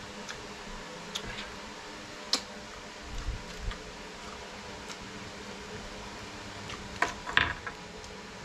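Oyster shells clicking and clinking as the meat is picked from them by hand, with a few soft low chewing sounds, over a steady low hiss. The loudest clinks come in a quick cluster about seven seconds in.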